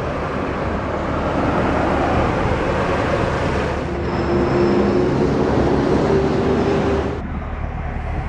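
Road traffic noise: a steady rush from passing vehicles, with an engine note that rises slightly from about four seconds in and stops abruptly about seven seconds in.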